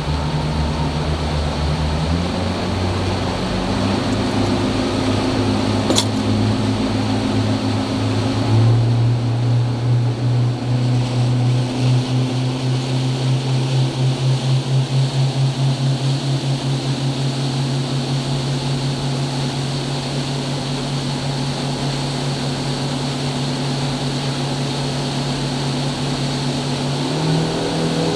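Yamaha outboard motor driving a fishing boat, its pitch stepping up a few times as the throttle opens and the boat gets onto the plane, then running steadily at cruising speed before rising again near the end. Water from the wake rushes past the hull beneath it.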